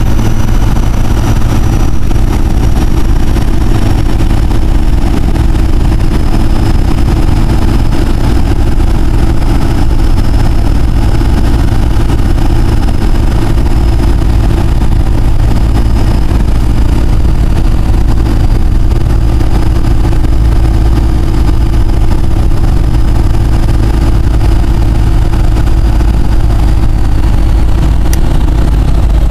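4BT Cummins four-cylinder turbo diesel in a 1971 Dodge pickup running under way, heard loud from inside the uninsulated cab. Over the engine the turbocharger's high whine slowly drifts down in pitch and drops away near the end.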